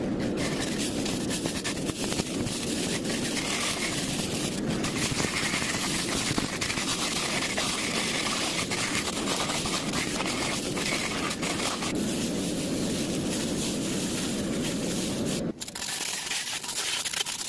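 Handheld laser cleaner working on old metal: a steady hissing crackle of the beam stripping the surface, over a low steady hum that drops away near the end.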